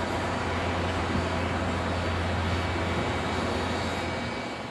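Boeing 767-300 freighter's jet engines during its landing roll: a steady low rumble with a broad hiss, starting to fade near the end.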